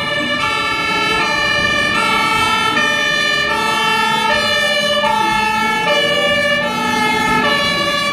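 Electronic fire-engine siren sounding steadily, a two-tone siren whose high and low notes alternate about every half second, with several siren tones overlapping.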